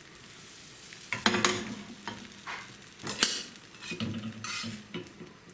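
Pancakes frying in a pan with a faint sizzle, then a utensil scraping and clattering against the frying pan several times, as when stirring batter or turning blini.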